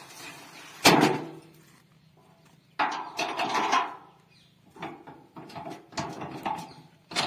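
Metal tailgate of a tractor's brick trolley slammed shut with one loud clang about a second in, followed by several clattering knocks as it is latched.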